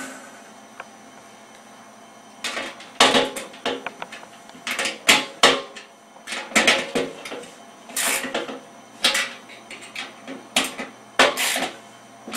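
Irregular metallic clicks and clanks of a handle screw being tightened with a Phillips screwdriver on the steel stacker section of a smoker. They begin a couple of seconds in.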